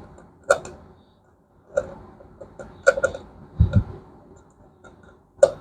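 Scattered clicks and light knocks of small parts and tools being handled, about half a dozen over a few seconds, one with a dull thud.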